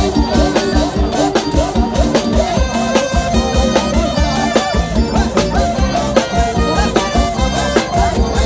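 Thai trae wong brass band playing a lively folk-pop tune over a fast, steady drum beat.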